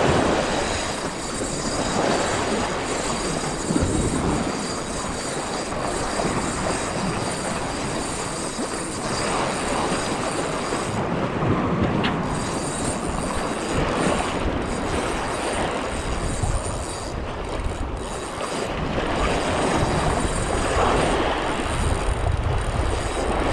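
Sea waves splashing and churning just below, with a steady rush of wind on the microphone.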